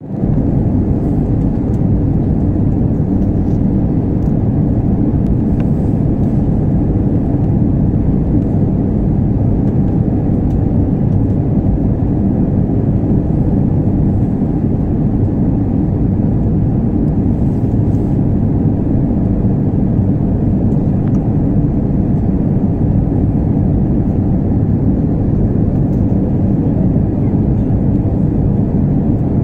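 Steady cabin noise inside an Airbus A321 on final approach to land: the engines and rushing air make an even low rumble that does not change.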